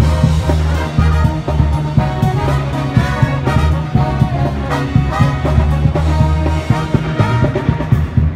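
College pep band playing a tune, with trombones and other brass carrying the melody over strong low notes in a steady rhythm.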